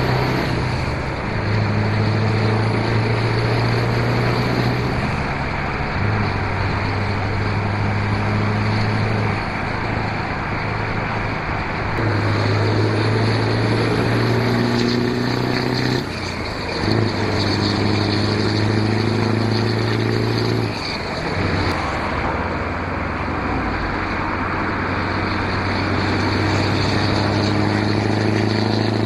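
Scania 143M's V8 diesel truck engine running at steady cruising speed, a low drone over road and wind noise. Its pitch steps to a new level several times, with brief dips about 16 and 21 seconds in.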